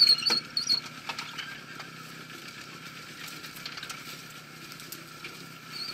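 A small vehicle's engine running steadily, with scattered mechanical clicks. A few sharp high squeaks and clicks in the first second are the loudest part.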